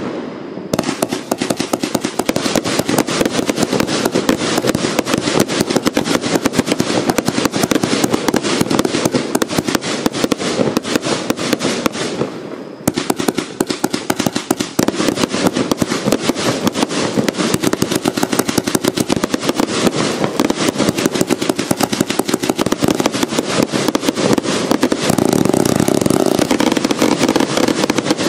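Vivid Pyrotechnics Terminal Velocity, a 164-shot 25 mm firework cake, firing in rapid succession: a dense, unbroken run of shots and bursts. There is a short lull about twelve seconds in and a louder stretch near the end.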